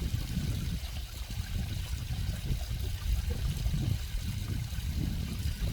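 Stream water flowing and trickling steadily over a deep low rumble.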